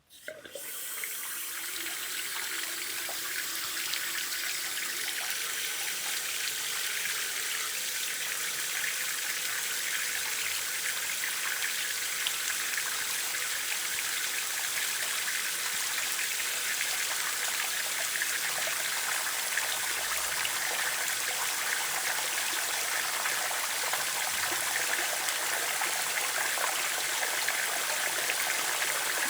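Water running from a tap, turned on at the start and building over the first couple of seconds, then flowing steadily.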